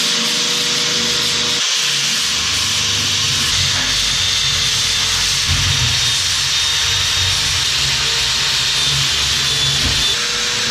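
Corded electric drill spinning a coarse 24-grit sanding disc against a galvanized steel panel, grinding off drilling burrs: a steady, loud, high hiss over the drill motor's whine, which dips briefly under two seconds in.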